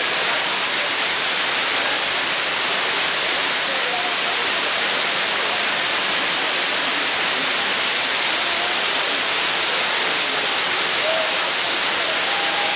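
Waterfall: water pouring steadily down a rock face and splashing below, an even rushing hiss with no change in level.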